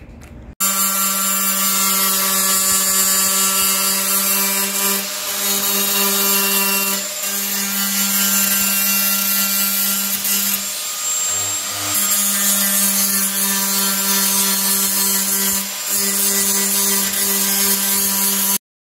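Electric angle grinder grinding steel car body panels: a loud, steady high whine with a hiss. It eases off briefly a few times and stops suddenly near the end.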